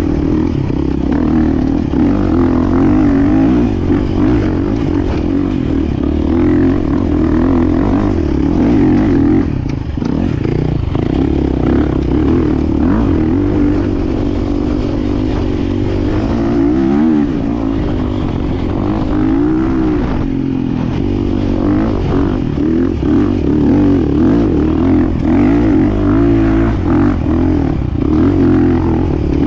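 2024 KTM EXC-F 350's single-cylinder four-stroke engine running hard, its pitch rising and falling as the throttle is opened and closed, with a brief drop in level about ten seconds in.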